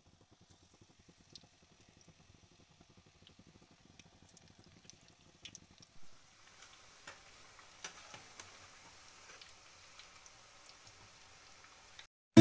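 Batter fritters frying in hot oil in a kadai: faint sizzling with scattered pops and crackles, a little louder from about halfway through.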